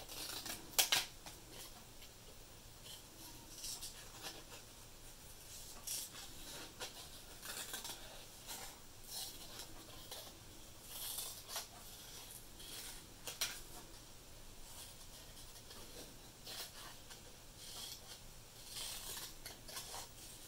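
Small scissors snipping through paper, cutting out a paper figure: short irregular snips scattered throughout, the loudest about a second in.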